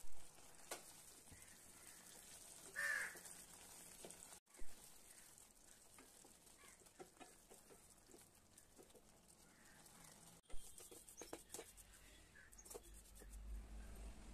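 Wooden spatula stirring thickening broken wheat rava in a stainless steel pan: faint scrapes and light taps, with a few sharp clicks. About three seconds in, a short bird call sounds.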